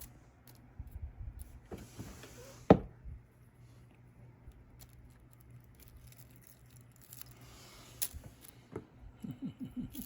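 A small plastic tape strip crinkling and clicking as a cat chews at it: scattered light rustles and ticks, with one sharp loud click about two and a half seconds in and another near the end.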